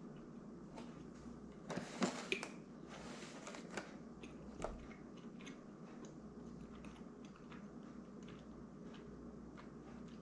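A man biting and chewing food close to the microphone, loudest in two noisy chews about two and three seconds in, followed by a few faint mouth clicks.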